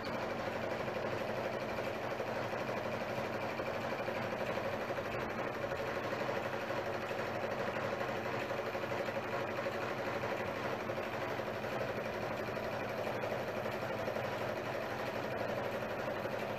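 Kodak Kodascope Model A 16mm film projector running, its mechanism giving a steady, unbroken mechanical whir.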